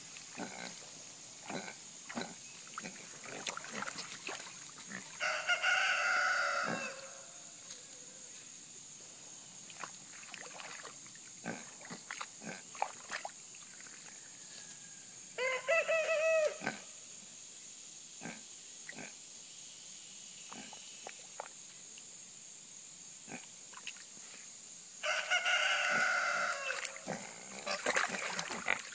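Pigs wallowing in a shallow mud puddle: scattered small wet splashes, knocks and occasional grunts. A rooster crows three times, about ten seconds apart, each crow lasting a second and a half or so.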